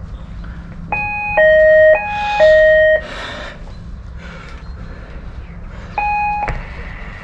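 Electronic two-tone door chime ringing a flat: a high then a low tone, played twice in quick succession, then a single high tone about six seconds in.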